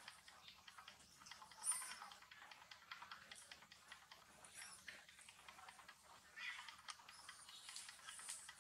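Faint, quick clicking and smacking of a young monkey chewing soft orange fruit, with a brief louder sound about two seconds in.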